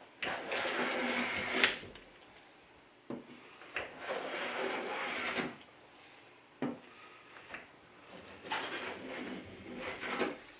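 Hand plane cutting along a cherry bed leg, peeling a shaving on each stroke: three long passes of about a second and a half each, with sharp knocks as the plane is set down and lifted between them.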